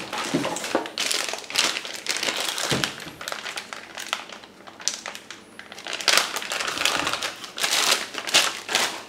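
Packaging crinkling and rustling in irregular bursts as it is handled during unboxing, louder in the last few seconds.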